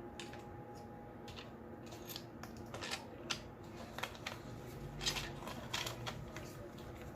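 Light metallic clicks and scrapes of timing chain guide bolts and the guide being handled and fitted by hand on a Ford 3.7L V6, a dozen or so short irregular ticks.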